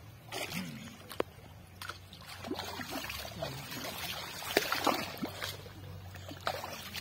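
Pond water splashing and sloshing in irregular bursts as a fishing net is drawn through it, with sharp splashes and clicks, busiest a few seconds in.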